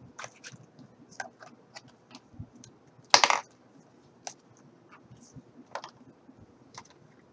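Cardboard display cards and small plastic stand pieces from a toy package being handled and fitted together on a desk: scattered light clicks and taps, with one louder clatter about three seconds in.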